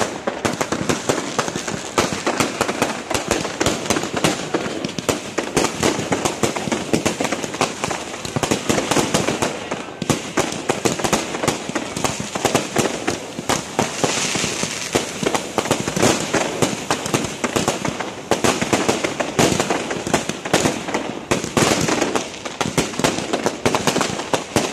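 Fireworks going off without pause: a dense run of rapid crackles and pops over the continuous hiss of ground spark fountains, the hiss growing stronger about fourteen seconds in.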